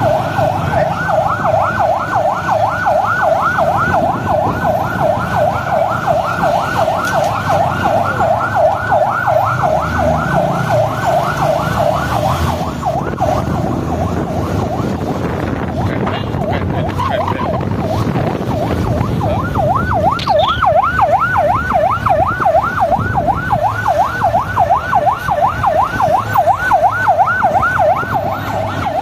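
Police vehicle siren on a rapid yelp, sweeping up and down about four times a second. It stops about twelve seconds in and starts again a few seconds later, over steady traffic noise.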